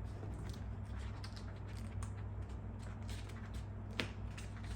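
Quiet handling of a vinyl decal on a plastic motorcycle fairing: light rustles and small ticks, with one sharper tap about four seconds in, over a steady low hum.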